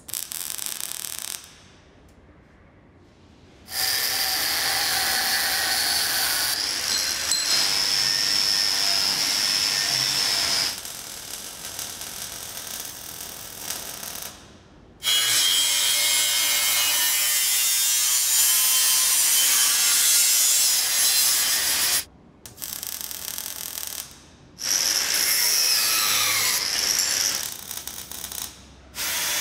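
A series of short metalworking bursts on a steel tank, each cut off abruptly and replaced by the next: the crackling hiss of MIG welding alternating with an angle grinder's high, wavering whine against steel. Near the end, the whine falls in pitch.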